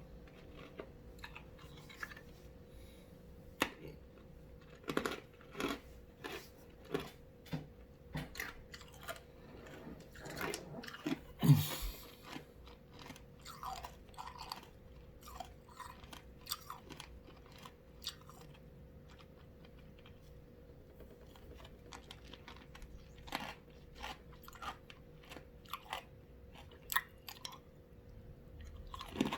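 Ice being bitten and chewed: irregular sharp crunches, bunched in the first half with the loudest about halfway through, then sparser.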